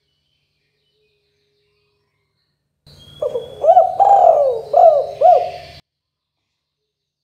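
Spotted dove cooing one short phrase of about four swooping notes, the longest in the middle, with faint high chirps of another small bird behind it. It starts about three seconds in and cuts off abruptly at about six seconds.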